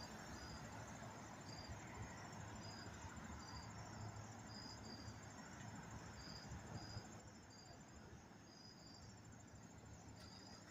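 Insects chirping: short, high chirps every second or so over a faint steady high trill. Underneath is a faint low rumble that dies down about seven seconds in.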